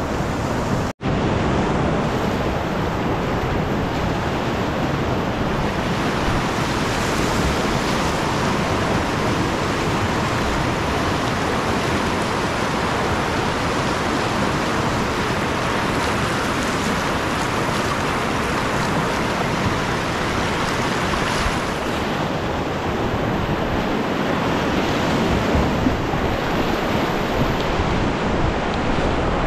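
Whitewater rapids rushing steadily, an even roar of water, broken by an instant cut-out about a second in.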